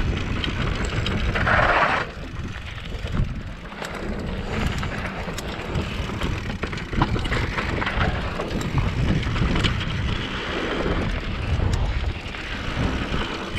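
Mountain bike riding down a dirt and rocky singletrack: wind buffeting the camera microphone over the tyres rolling on dirt and rock, with the bike rattling in scattered sharp clicks.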